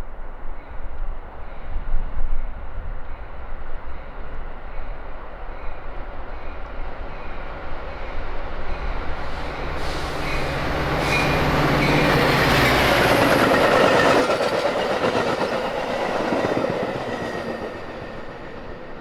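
Metra diesel commuter train approaching and passing close by. A steady low engine tone is followed by the rush of wheels on rail and cars going by. It is loudest about two-thirds of the way through and fades near the end.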